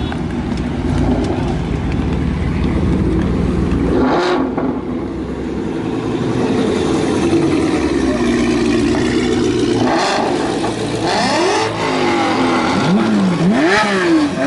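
Performance cars driving slowly past one after another, engines running, among them a Dodge Challenger and a Porsche 911 GT3. From about eleven seconds in, an engine is revved several times, its pitch rising and falling with each blip.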